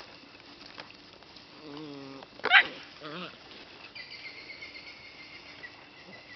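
Puppies at play making short vocal sounds: a brief whine, then a sharp, loud yelp about two and a half seconds in, and a short wavering whimper just after. From about four seconds a faint steady high-pitched tone runs in the background.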